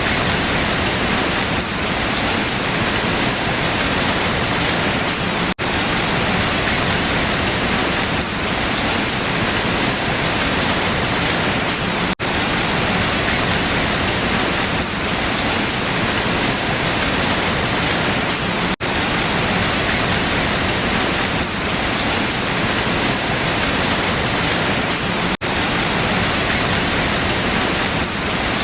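Steady heavy rain falling on foliage, a dense even hiss of drops. Brief, sudden gaps interrupt it about every six and a half seconds.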